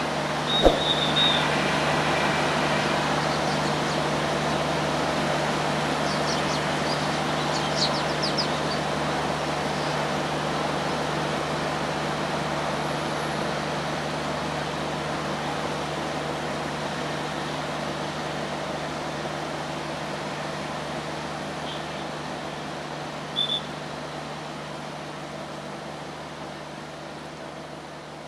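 Passenger train hauled by a GT18LA-2 diesel locomotive running away down the line, its engine and wheel noise fading steadily. A short horn toot sounds about a second in, and another brief toot near the end.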